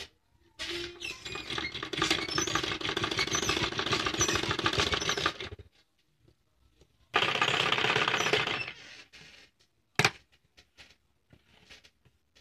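Domestic straight-stitch sewing machine running in two bursts of rapid, even needle strokes, the first about five seconds long and the second about two, as a hemmed edge is stitched. A single sharp click follows near the end, then a few light ticks.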